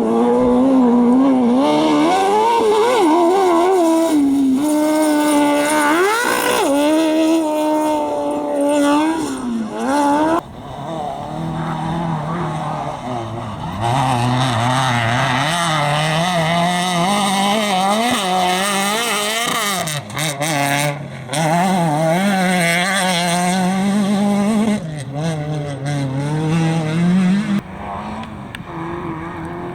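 Competition engines revving hard and lifting off repeatedly through gear changes as vehicles are driven flat out on a dirt slalom course. There are several passes, with abrupt changes about a third of the way in, around halfway, and again about two-thirds through.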